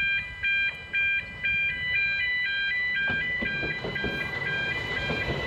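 Level-crossing audible warning alarm: an electronic multi-tone alarm pulsing about twice a second, turning into a quicker warble about halfway through. It signals that the crossing is closing for an approaching train.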